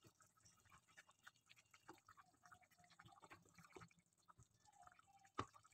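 Near silence, with faint scattered clicks and one short knock near the end: a wooden spatula stirring curry in an aluminium pot.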